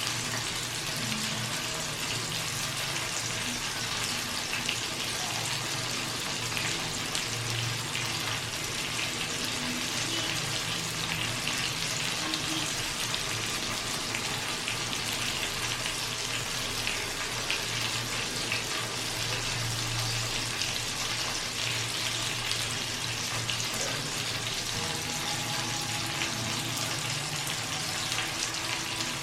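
Chicken sizzling as it roasts: a steady crackling hiss of fat spitting, with a low hum underneath.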